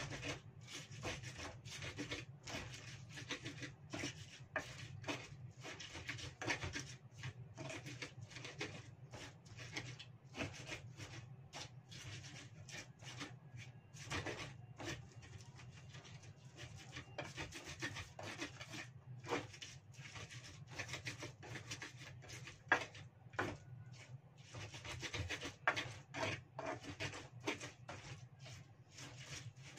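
Pestle (ulekan) grinding shallots, garlic, chilies and shrimp paste in a cobek mortar: repeated rubbing and scraping strokes, irregular, about one or two a second, as the spices are crushed into a paste.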